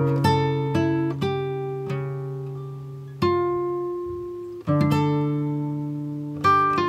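Acoustic guitar music: plucked notes and chords ringing out and fading, with fresh chords struck about three seconds in, again near five seconds, and a quick run of notes near the end.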